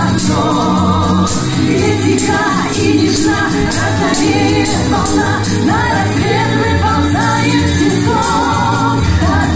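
Russian Gypsy-style song music: a wavering melody over a steady bass line and a regular beat.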